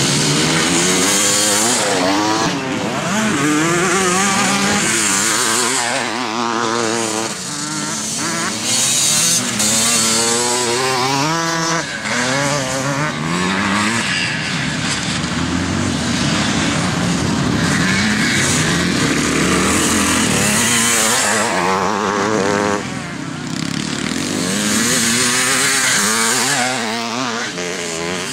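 Twin-shock motocross bikes racing through a corner, their engines revving up and dropping back again and again as riders pass one after another, with more bikes heard around the track.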